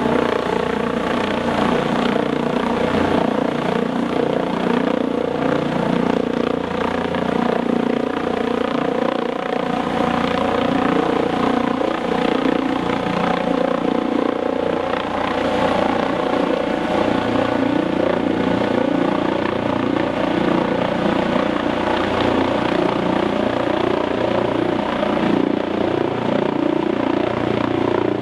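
Eurocopter EC155 twin-turbine helicopter running steadily and loud: an even turbine whine layered over rotor noise, with no change in pitch or level.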